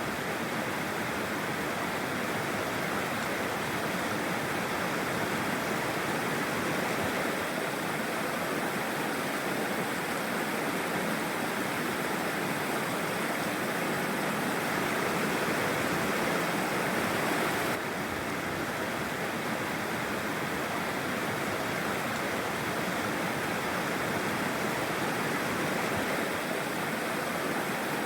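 Mountain stream rushing steadily over rocks, a dense even water noise, with a slight step down in level about two-thirds of the way through.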